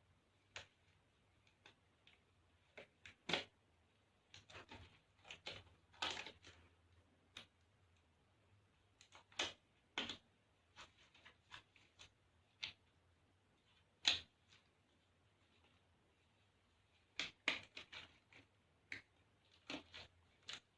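Scattered light knocks, clicks and rustles of equipment being handled and set down, some in quick clusters, over a faint low hum.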